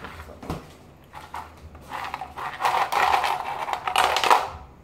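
Ice cubes clattering against hard plastic as they are tipped from a plastic ice container into a blender cup: a dense run of quick knocks starting about two seconds in and stopping just before the end.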